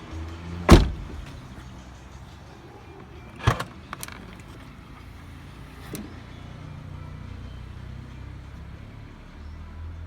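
Car sounds: a loud sharp thud just under a second in, another at about three and a half seconds followed by a smaller knock, and a fainter one near six seconds, over a low steady hum.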